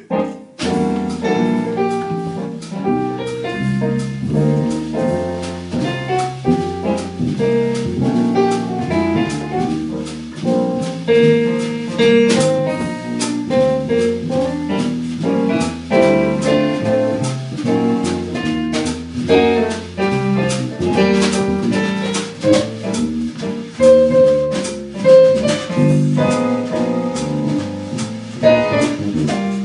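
A small live band playing: a keyboard with a piano sound, a guitar and a drum kit, starting up about half a second in.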